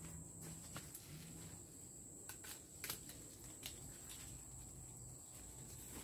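Quiet outdoor ambience with a steady high-pitched insect drone, broken by a few scattered light clicks and snaps from hands working in a fruit tree's branches; the sharpest click comes about three seconds in.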